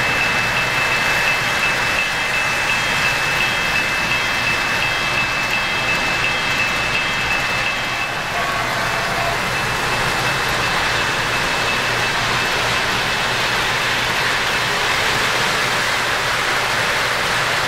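O-gauge model train running along three-rail track: a steady rolling rumble and hiss of wheels and motors. Over it a thin high tone, pulsing about three times a second, runs through the first half and fades out past the middle.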